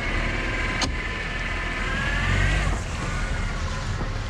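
Honda Accord running and moving slowly, a steady low engine rumble under a high whine that rises and then stops a little under three seconds in. A single sharp click about a second in.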